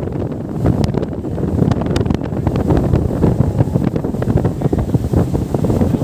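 Heavy wind buffeting the microphone aboard a speedboat under way, over the running noise of the boat and the water: a steady, dense low rumble.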